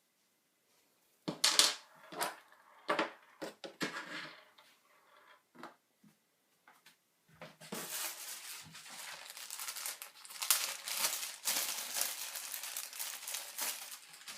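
Handling noises: a few knocks and rustles, then continuous crinkling and tearing of plastic packaging from about halfway through, as a thermal paste pack is opened.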